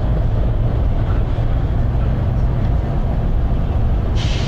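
Volvo B9TL double-decker bus's six-cylinder diesel and drivetrain running under way, a steady low rumble heard from the upper deck. Near the end comes a short burst of hiss from the bus's air system.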